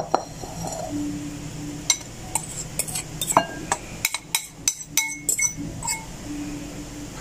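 Metal fork clinking and scraping against ceramic bowls as dry flour mixture is tipped and scraped out of one bowl into a larger one: a scatter of short sharp clinks, most of them between about two and five and a half seconds in.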